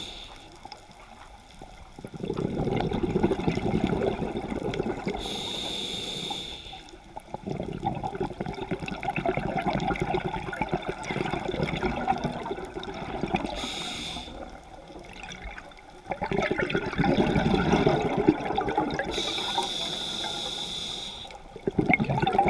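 Scuba diver breathing through a regulator, heard underwater: three shorter hisses with a steady whistle on the inhale, between longer bursts of rumbling exhaust bubbles on the exhale.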